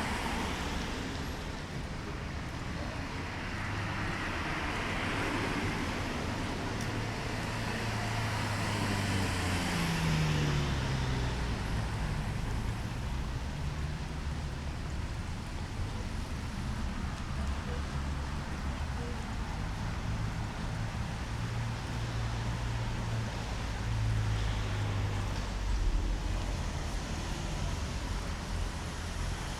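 City street traffic: motor vehicles passing with their engines running low. One vehicle's engine tone drops in pitch as it goes by, about ten seconds in.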